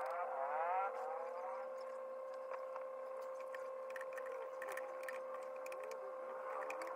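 Laptop keyboard typing: scattered soft key clicks over a steady hum. A wavering pitched sound is heard in the first second and a half.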